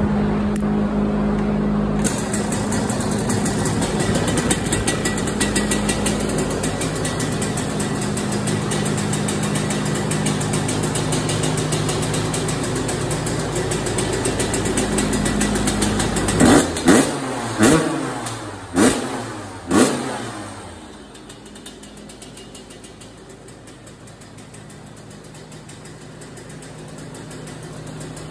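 1999 Yamaha YZ125's two-stroke single-cylinder engine, freshly fitted with replacement power valves, running steadily, then revved in five quick throttle blips about two-thirds of the way through, each dropping back, before settling to a quieter idle.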